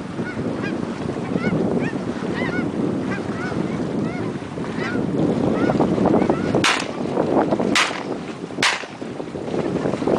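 A flock of geese calling with many short, repeated honks over wind rumble on the microphone. About two-thirds of the way in come three sharp cracks roughly a second apart.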